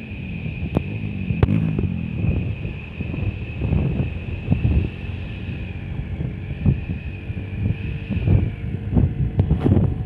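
Road vehicle noise with uneven low rumbling surges and wind buffeting the microphone, over a steady high whine, with a few sharp clicks.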